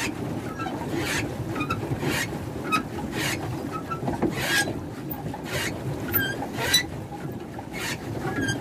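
Small boat moving across a lake: water splashing against the hull in a steady rhythm, roughly once a second, over a low rushing noise.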